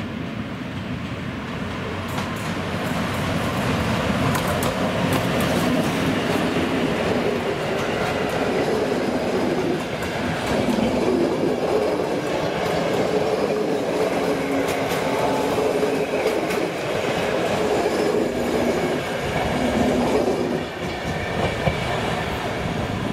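PKP Intercity passenger train passing close by, its coaches' wheels clacking over the rail joints over a steady rumble that builds over the first few seconds.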